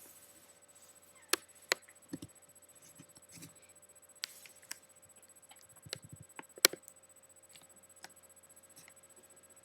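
Scattered sharp clicks and taps, the loudest about two-thirds of the way through, over a faint steady hum.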